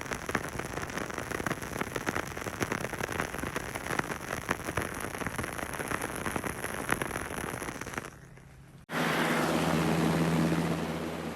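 Film crackle sound effect: dense crackling and popping clicks over a steady hiss, like worn film running through a projector. About eight seconds in it fades. Shortly after, a film-burning effect starts suddenly: a loud rushing hiss with a steady low hum under it.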